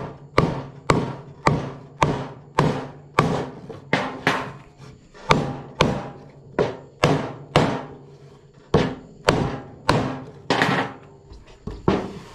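Steady hammer blows, about two a second with a short pause partway through, knocking notched wooden leg pieces together through a scrap block of wood to seat a glued joint.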